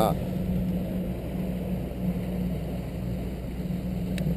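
Small boat's motor running at a steady, even pitch while the boat is under way, with a haze of water and wind noise.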